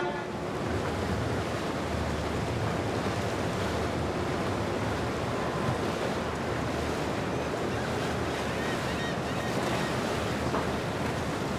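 Steady rushing wash of wind and river water, with a faint low rumble underneath.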